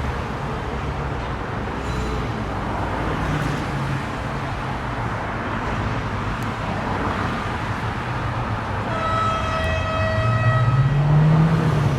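Steady engine hum and traffic noise. About nine seconds in, a horn sounds one long steady blast lasting about two seconds. Near the end a low engine note rises in pitch and grows louder.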